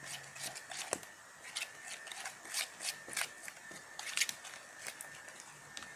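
Holly slime being stirred and worked in its container with a stirrer, giving irregular wet, sticky clicks and squelches, as baby oil is mixed in to take away its stickiness.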